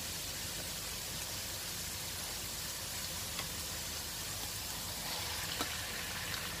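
Hot oil sizzling steadily with chopped ginger and garlic frying in a wok. About five seconds in, the sizzle grows a little louder with a small click as sliced chicken goes into the oil.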